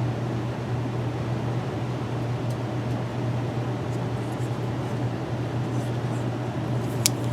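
Steady low hum and hiss of background room noise, like an air conditioner or fan, with one sharp click about seven seconds in.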